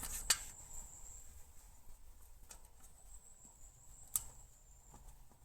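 Faint handling sounds of a mountain-bike inner tube's valve being worked through the rim's valve hole: a few sparse clicks and taps, the sharpest about a third of a second in and just after four seconds in. A steady high insect trill runs underneath.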